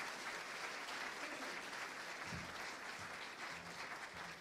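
Church congregation applauding, the clapping slowly tapering off near the end.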